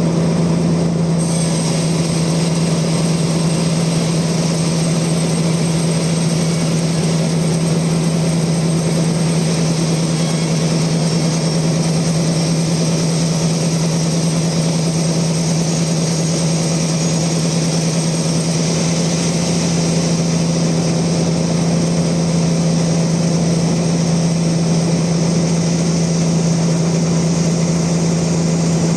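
Bandsaw mill running steadily, with a constant deep motor hum. A brighter high hiss with a thin whine comes in about a second in.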